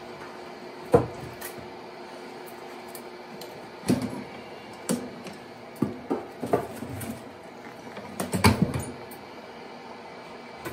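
Montlake 230 wood-burning fireplace insert being reloaded: the glass door is opened, a split log is set down onto the ember bed, and the door is shut and latched again, making a series of sharp metal clanks and wooden knocks. The loudest cluster comes about three-quarters of the way in, as the door closes.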